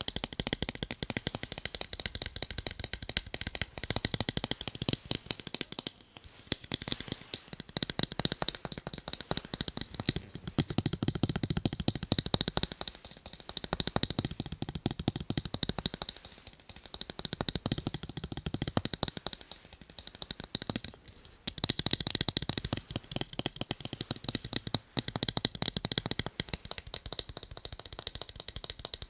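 Fast, continuous tapping on a pair of eyeglasses, a dense run of quick light clicks with a few brief pauses.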